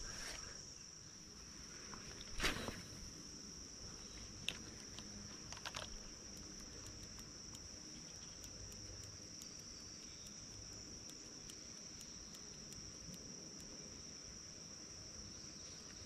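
Insects calling in one steady high-pitched drone, with a brief sharp noise about two and a half seconds in and a few fainter ticks after it.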